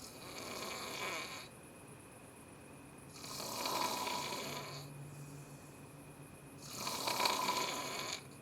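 A person snoring: three long snores about three seconds apart, the middle one the longest.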